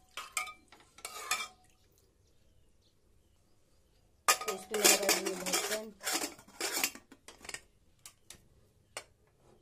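Stainless-steel pressure cooker and its lid clattering: a few clanks, then a louder run of metal clanking and scraping as the lid is fitted onto the pot, with a few light clicks near the end.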